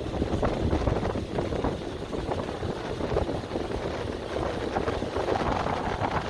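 Wind buffeting the microphone, a steady fluttering rumble with a rushing hiss over it.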